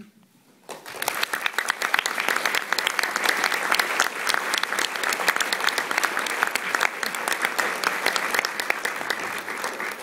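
An audience applauding. The clapping starts about a second in and dies away near the end.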